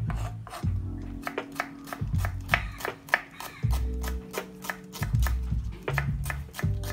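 Knife slicing shallots on a wooden chopping board: a quick, uneven run of sharp taps, a few each second, over background music.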